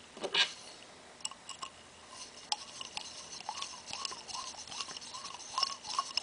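Small ticks and short squeaks of the bottom screw being threaded back into an oil-filled Scotts steering damper with a hand tool, after a short clatter about half a second in.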